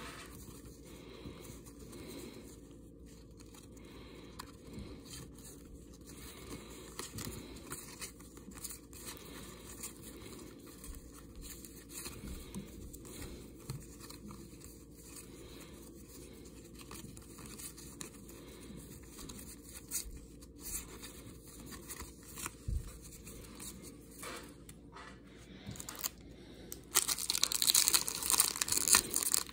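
Trading cards being flipped through by hand, with quiet sliding and light taps of card stock. About 27 seconds in, a plastic card-pack wrapper crinkles and tears open loudly; this is the loudest part.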